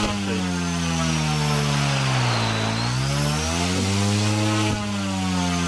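Small electric RC helicopter's motor and main rotor running hard on a thrust test, a steady whine whose pitch sags in the middle and climbs back up. A short click near the end.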